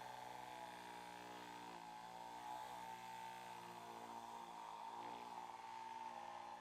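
Electric vibrating massage machine humming steadily, its pitch wavering in the middle as it is pressed against the head and neck.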